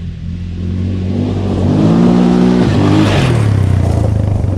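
Aeon Cobra quad engine revving. It runs steadily, rises in pitch about two seconds in and holds there briefly, then drops back. A short rough blast follows, and then it settles into a lower steady run.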